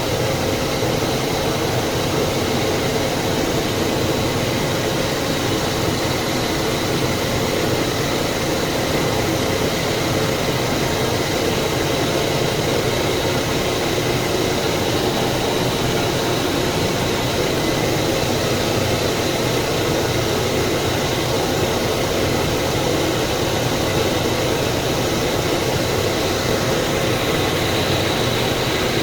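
Refrigerant recovery machine running steadily, its compressor pumping refrigerant out of an air-conditioning system into a recovery tank. A constant mechanical hum with a faint, steady high whine.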